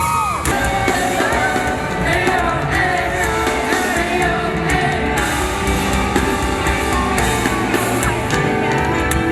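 Loud amplified rock-style band music with a steady drum beat and singing, played through a stage PA.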